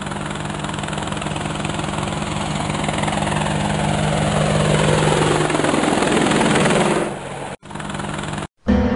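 Helicopter rotor sound effect, a steady chopping that grows louder over several seconds with a whine falling in pitch. It drops off about seven seconds in and breaks off briefly twice near the end.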